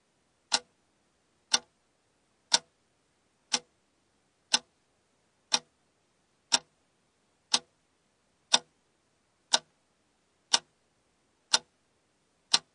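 Clock-tick sound effect of a countdown timer: one short, sharp tick every second, evenly spaced, counting down the seconds.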